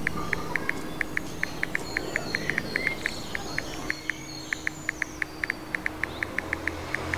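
Smartphone on-screen keyboard key-tap clicks, one short tick of the same pitch for each key pressed, in quick uneven runs of about five a second as a text message is typed. Faint birdsong chirps behind.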